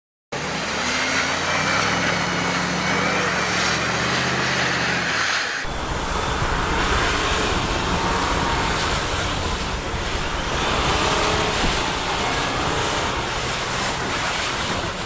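A Jeep Wrangler's engine running under load as it drives through snow; about five and a half seconds in the sound cuts to a Land Rover Discovery 4's engine revving with its wheels spinning in deep snow, a heavy low rumble and rushing noise that lasts to the end.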